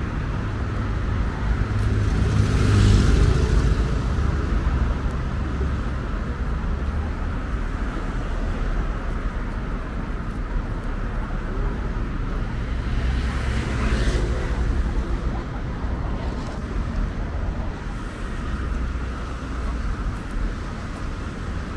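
City street traffic: a steady rumble of cars, with two louder swells as vehicles go past, one about three seconds in and one around fourteen seconds.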